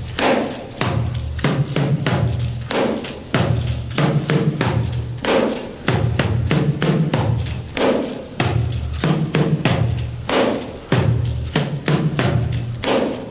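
Headed tambourine played in steady eighth notes on the jingles, a fast even run of jingle strokes with regular accents. A low bass line plays beneath it.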